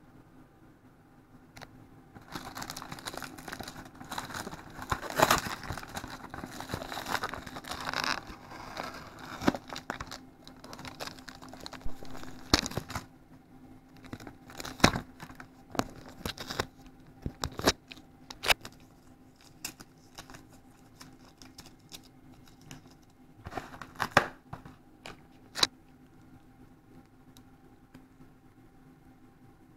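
Thin plastic food packaging crinkling and crackling as a bento tray, its lid and small condiment packets are handled. A dense run of crinkling lasts about ten seconds, then scattered sharp crackles and snaps, over a faint steady hum.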